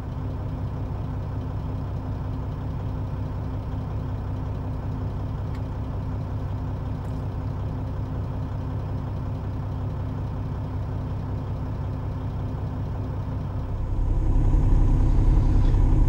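Diesel semi-truck engine idling, a steady low hum with a constant tone over it. About two seconds before the end the low rumble grows louder.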